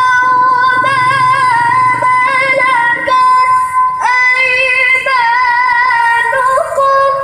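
A woman's voice reciting the Quran in the melodic tilawah style, holding long high notes with wavering ornaments and starting a fresh phrase about four seconds in. The recitation closes on a held note near the end.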